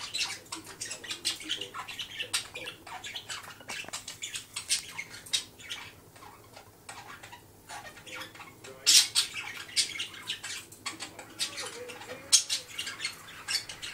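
Budgerigar chattering: a rapid, scratchy warble of high chirps and clicks. It drops quieter for a couple of seconds midway, and the loudest calls come after that.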